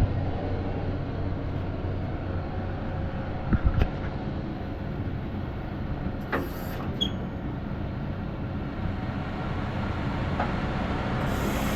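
Diesel truck engine running steadily, with a few short knocks about three and a half seconds in and brief hisses about six seconds in and near the end.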